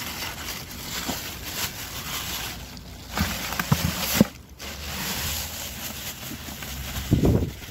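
A plastic carrier bag rustling and crinkling as it is handled and pushed into a plastic bucket, with a few knocks about halfway through and a louder one near the end.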